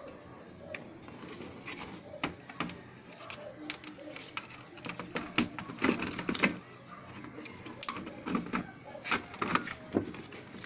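Clicks and knocks of a flat-screen TV's plastic back cover and connector panel being handled and pressed into place by hand, a run of irregular sharp taps, louder in the middle and near the end.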